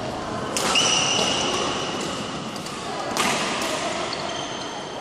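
Badminton rackets striking a shuttlecock twice, about a second in and again after three seconds, each hit echoing around a large sports hall and followed by high squeaking.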